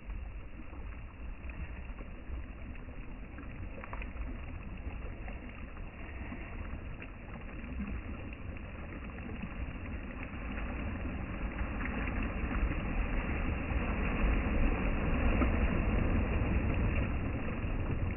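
Sea water washing and surging, a noisy rush that swells louder over several seconds in the second half.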